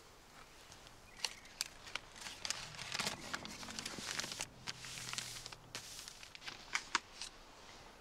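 Quiet footsteps crunching through dry leaf litter and twigs, with scattered sharp crackles and rustling over several seconds.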